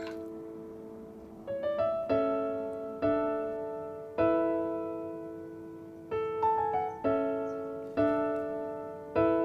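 Background piano music: slow, gently struck chords that ring and fade, about one a second, with a few quicker notes between them.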